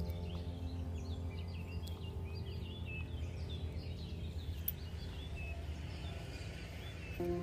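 Small birds chirping: many short, quick calls over a steady low hum.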